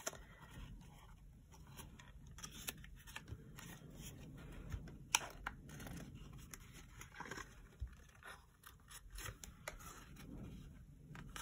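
Faint rustling and crinkling of cardstock handled by hand, with scattered small clicks and taps, as little paper pieces are pressed onto a folded paper treat holder.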